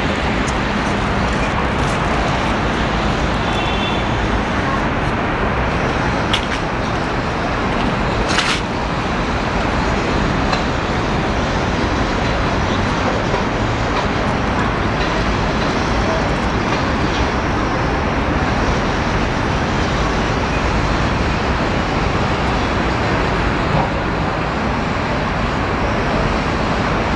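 Steady city traffic noise, an even rumble that does not let up, with a couple of brief clicks partway through.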